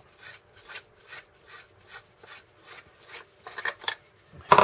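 Back cap of a P80 pencil-shaped plasma cutting torch being unscrewed by hand: short scraping rasps from the turning threads, about two to three a second, then a louder knock near the end.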